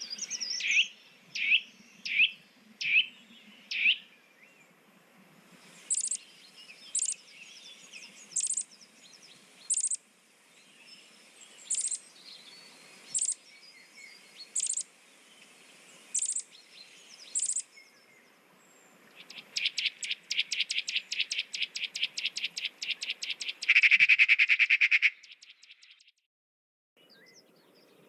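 Birds calling. First come five short chirps, then about nine sharp, high chirps a second or so apart, then a fast trill that ends in a louder, lower trill and cuts off.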